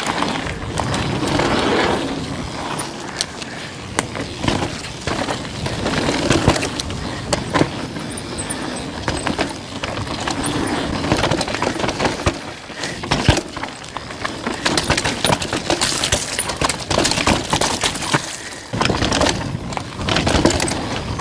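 Downhill mountain bike ridden over rough trail: tyres running over stones and roots, and the chain and frame rattling with frequent sharp knocks, under steady wind buffeting on the helmet camera's microphone.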